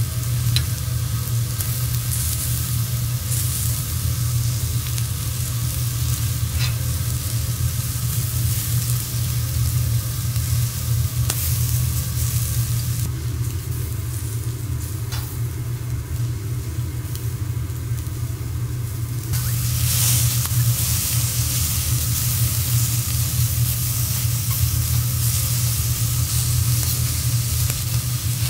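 Seafood sizzling on a teppanyaki steel griddle as it is stirred and turned, with a few light clicks of the metal spatulas. The sizzle thins out for a few seconds midway, then flares up louder about two-thirds of the way through, over a steady low hum.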